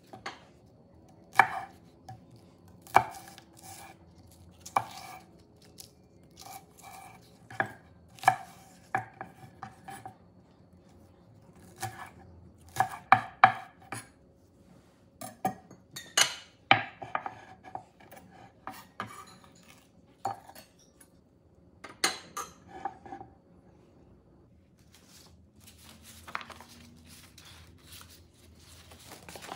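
Chef's knife chopping a green onion on a wooden cutting board: sharp, irregular knocks, some in quick runs, stopping several seconds before the end.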